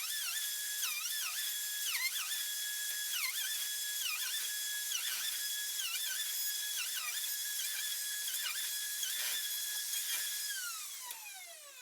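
DeWalt router on a flattening sled running at full speed, its high whine dipping in pitch again and again as the bit bites into a maple slab. About ten and a half seconds in it is switched off and the whine falls away as it spins down.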